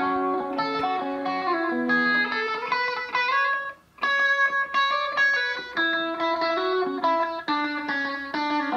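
Isolated guitar solo, a line of single melodic notes, played back through a tape delay from an analog tape machine, which adds a slight echo. The playing breaks off briefly just under four seconds in.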